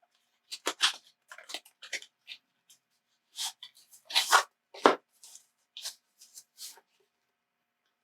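Product packaging handled by hand: a string of short crinkles, rustles and clicks that stops about a second before the end.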